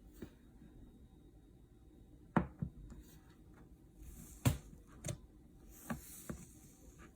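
Close-up handling sounds: a scattering of short, sharp taps and clicks, about seven in all, the loudest about two and a half and four and a half seconds in, over a faint steady background.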